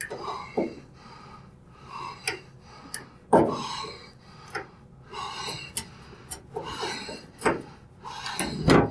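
Irregular metal clicks and scrapes of a hand tool working at a washing machine's stuck leveling foot, with a person's breathing in between.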